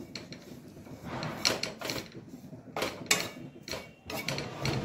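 Wooden spatula scraping and pushing mawa (khoya) around a nonstick kadai as it is roasted, in a run of uneven scrapes that come more often near the end.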